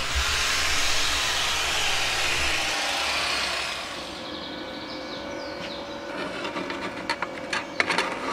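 An angle grinder's spinning cleaning wheel brushing slag and spatter off a flux-core weld on thin steel tubing, an even hiss over a low motor hum. It dies away about three seconds in. After that come a few light clicks and knocks.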